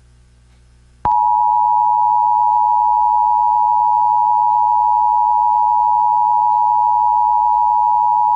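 Emergency Alert System two-tone attention signal: a loud, steady dual tone that starts about a second in after a brief gap. It is the alert tone that comes just before a broadcast warning message.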